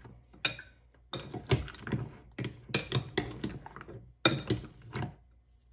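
Metal spoon scraping and clinking against a ceramic bowl as chocolate pieces are stirred into cream, in a series of uneven strokes that stop shortly before the end.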